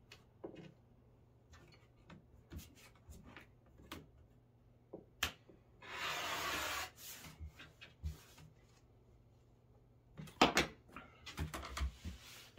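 A rotary cutter slicing once along the edge of the quilt layers for about a second, a little past the middle, amid scattered light clicks and knocks of a ruler and fabric being handled on the cutting mat.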